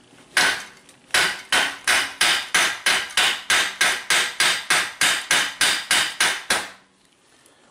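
Hand hammer striking a rusty, torch-heated steel wheel hub: metal-on-metal blows, first a single blow, then a fast, even run of more than twenty at about four or five a second that stops about a second before the end. The blows are the shock method, meant to break the rust seal around a seized bolt.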